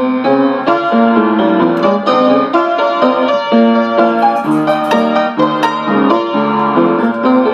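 Piano played continuously, a steady run of notes struck one after another over low chords.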